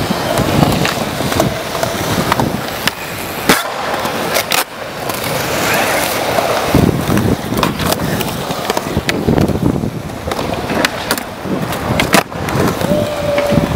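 Skateboard wheels rolling on concrete, broken by several sharp clacks of the board popping and landing, the loudest a little after three seconds, at four and a half seconds and near the end.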